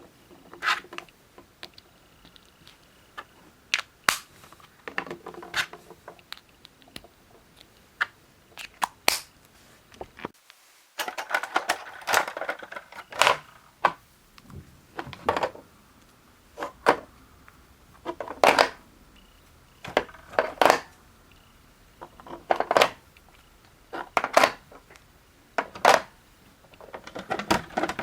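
Hard plastic toy parts being handled: a series of sharp clicks and knocks, a second or two apart, with a short stretch of denser clattering near the middle.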